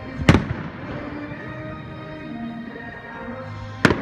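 Aerial firework shells bursting: two sharp bangs about three and a half seconds apart, each followed by echoing rumble.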